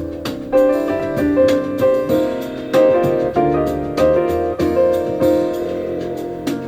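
Instrumental piano passage of a recorded song, over low bass notes, with no singing, played back through an Anker Soundcore Mini 2 portable Bluetooth speaker.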